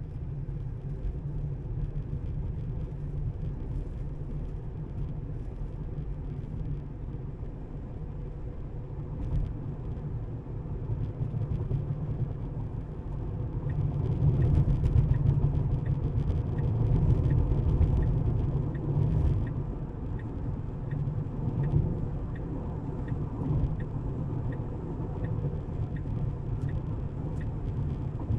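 Road and tyre noise of a Tesla electric car driving: a steady low rumble that swells for a few seconds around the middle. A light, regular ticking runs through the second half.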